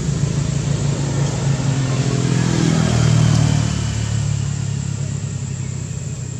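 An engine running steadily, getting louder around the middle and easing off toward the end.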